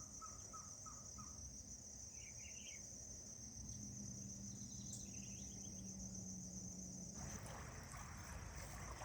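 Insects keep up a steady high-pitched trill, with a few short bird chirps. A faint low hum sounds through the middle, and a wash of noise rises about seven seconds in.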